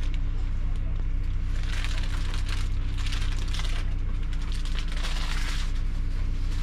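Diesel coach engine idling with a steady low hum, with a couple of spells of crackly rustling over it.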